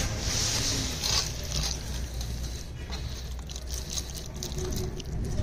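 Bare hands rubbing and pressing a wet paste into a raw leg of lamb in a steel tray: soft squishing and rubbing with scattered light clicks.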